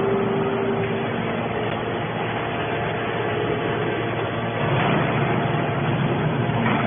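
Hydraulic can baler running, a steady mechanical drone with hiss, growing a little louder about five seconds in.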